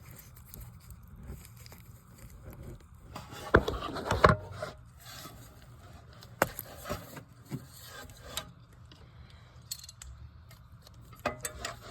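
Scattered clicks, knocks and scraping of tools and parts being handled during a rear brake pad wear sensor replacement, loudest in a short cluster of knocks about four seconds in.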